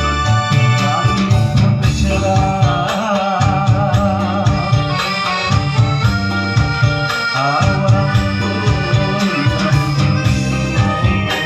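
Music: a steady pulsing bass beat under sustained keyboard-like chords, with a melody line held with wide vibrato a few seconds in.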